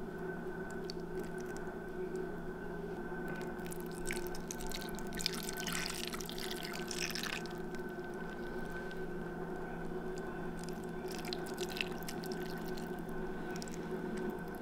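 Thick cream sauce being poured from a bowl over plated lobster tails and pasta: wet dripping and splattering, busiest about five to seven seconds in and again near the end, over a steady low hum.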